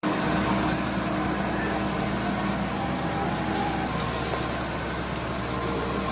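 Diesel engine of heavy earthmoving machinery running steadily, a low even hum.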